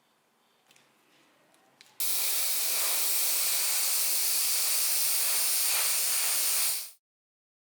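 Aerosol spray can spraying in one continuous hiss, starting abruptly about two seconds in, lasting about five seconds and stopping suddenly. A few faint small clicks of handling come before it.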